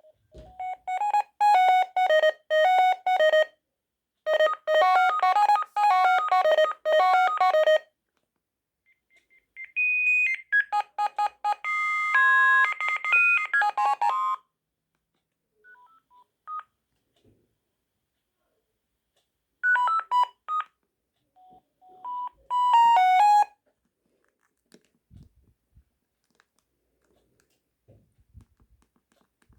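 Sagem MY 3022 mobile phone playing a run of electronic ringtone melodies through its small speaker: two bright tunes of about three seconds each, then a longer one, a few single beeps, and two short jingles. Only a few faint knocks follow near the end.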